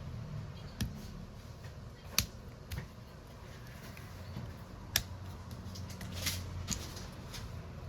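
Small tools clicking and tapping on a phone at a repair bench: about six sharp, separate clicks spread irregularly over a low steady hum.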